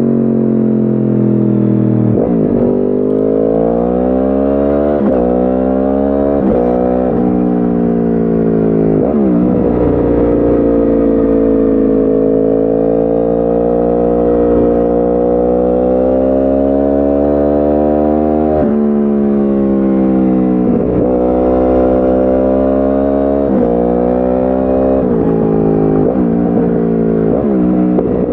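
2010 Yamaha R1's crossplane inline-four, uneven 'big bang' firing, through a decatted Akrapovic exhaust, under way: the revs climb and fall sharply again and again at gear changes, with a steadier, held-throttle stretch in the middle.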